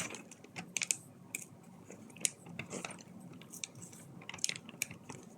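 Irregular small plastic clicks and taps of Lego pieces being handled.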